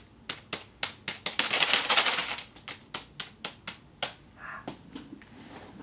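Typing on a computer keyboard: separate keystroke clicks, with a fast flurry about a second and a half in, thinning out and stopping after about four and a half seconds.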